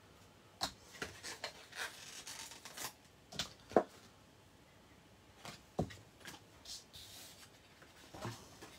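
Paper and card stock being handled and shifted on a table, soft rustling with scattered light taps and clicks as thin metal cutting dies are peeled off their backing sheet and laid on the card.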